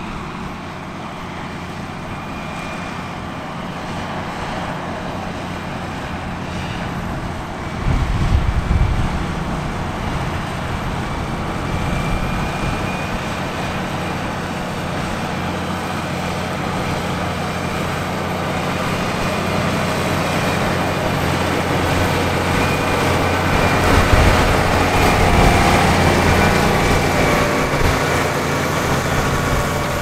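Case IH Puma tractors' diesel engines running steadily under load while pulling reversible ploughs, gradually getting louder. A brief low rumble about eight seconds in.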